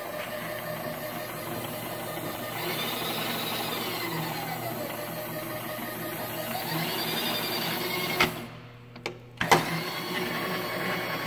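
X-axis servo power feed on a Microcut 837 vertical milling machine, driving the table with a steady motor whine whose pitch falls and then rises again as the feed speed changes. About eight seconds in it clicks off, stops for about a second, and clicks back on.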